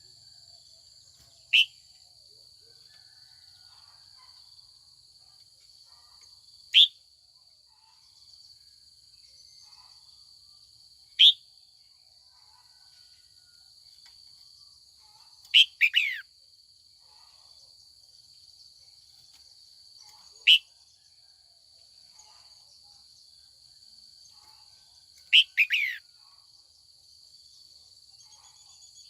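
Red-whiskered bulbul calling: six short, sharp notes that each fall quickly in pitch, about every four to five seconds, the fourth and the last coming as quick runs of two or three notes. A steady high insect drone runs underneath.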